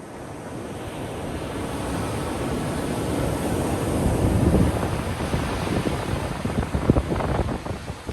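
Ocean surf on a beach: a wave's rush builds over the first few seconds to a crash near the middle, then breaks up into churning wash, with wind buffeting the microphone.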